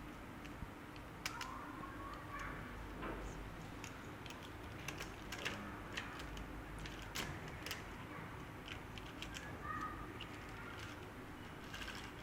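Hands handling a model train and its packaging: scattered light clicks and taps, with a couple of brief squeaks.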